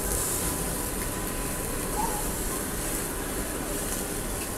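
Steady street-traffic noise from outside, with chicken pieces sizzling on a charcoal barbecue grill.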